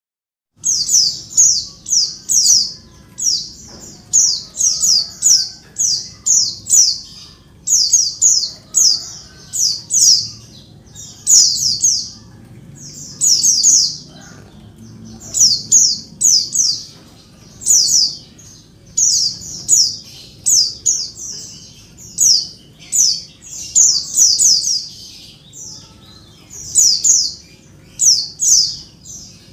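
Female pleci (white-eye) calling noisily: rapid clusters of thin, high, downward-slurred notes, the clusters coming about once a second. These are the calls a female makes to summon a male.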